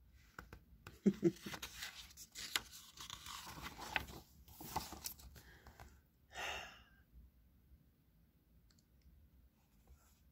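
Paper rustling and crackling as a picture book's page is turned and the book handled, with a short soft puff of noise about six and a half seconds in.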